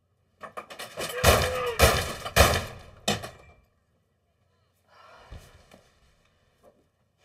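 A loud run of bangs and thuds, with something like a brief raised voice about a second and a half in, lasting about three seconds; a shorter, quieter stretch of similar noise follows about five seconds in.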